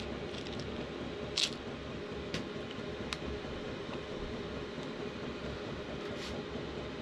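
A few light clicks and taps as small metal parts of a model oscillating steam engine are handled and fitted, the clearest about a second and a half in, over a steady low background rumble.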